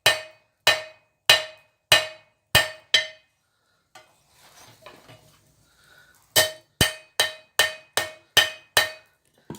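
Hand hammer striking hot steel bar on an anvil, each blow with a short ring, drawing a taper on square bar stock. Six steady blows, a pause of about three seconds, then a quicker run of about nine blows.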